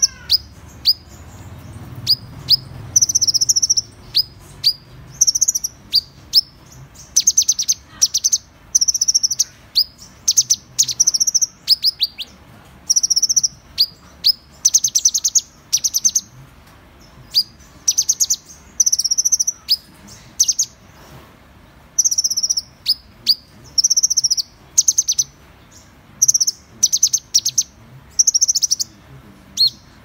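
Van Hasselt's sunbird (Leptocoma brasiliana) calling: a steady stream of short, high, sharp chips and brief twittering bursts, several every second.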